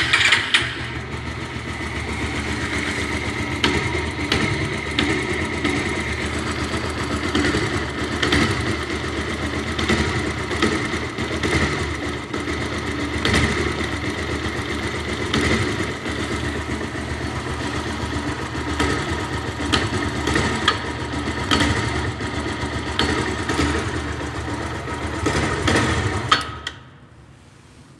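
Bajaj Pulsar 180's single-cylinder four-stroke engine running at low revs, with sharp irregular clicks over the running; this is the strange noise the owner hears at low revs and cannot explain. The engine is shut off about 26 seconds in.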